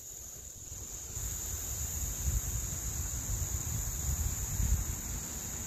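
Insects trilling steadily and high in the background, with a low rumble setting in about a second in.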